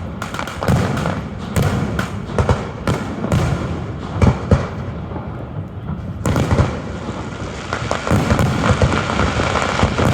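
Fireworks finale: aerial shells bursting in rapid, overlapping booms with crackle between them. The barrage thins briefly around the middle, then builds dense again.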